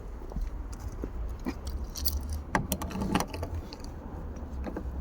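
A bunch of keys jangling, with scattered metallic clicks as a key is worked in the worn door lock cylinder of a VW Golf Mk3. The clatter is heaviest about two to three seconds in.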